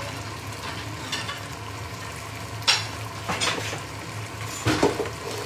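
Pork chops and vegetables sizzling in a frying pan over a steady low hum, with a few sharp clatters of plates and dishes about halfway through and again near the end.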